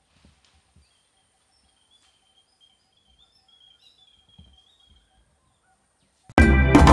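Very faint outdoor ambience with a bird giving a thin, wavering high call and a few soft low thumps. Near the end, loud background music starts suddenly.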